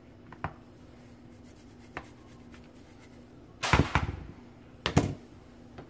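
Handling of a metal-faced plastic flat grater, set down on a plastic cutting board: two light clicks, then two louder clattering knocks about a second apart in the second half.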